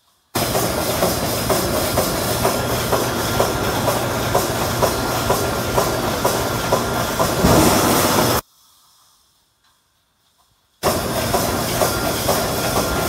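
Pneumatic wire mesh welding machine for chicken-cage mesh running: a loud hiss of compressed air with a fast, regular clacking of the welding strokes. It cuts off abruptly about eight seconds in and starts again about two seconds later.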